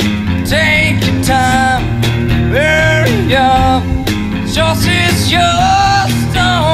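Background music: a song with a singing voice over guitar and a steady bass line.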